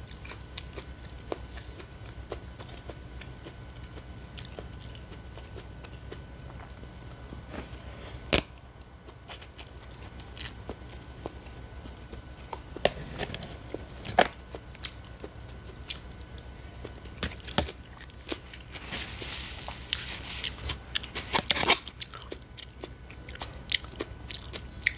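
A person chewing and biting into a salad of noodles, raw cabbage and other vegetables, with wet mouth smacks and crisp crunches at irregular intervals.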